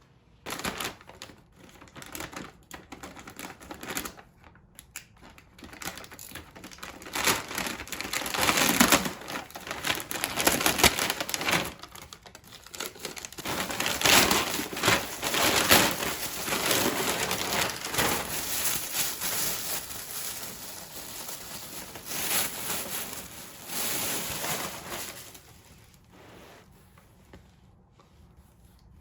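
Wrapping material crinkling and crumpling as it is handled close up, with dense crackles and small clicks. It comes in uneven bursts that grow busier about seven seconds in and die away near the end.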